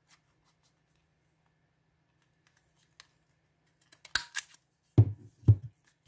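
Scissors snipping paper twice, a little after four seconds in, followed by two dull thumps half a second apart.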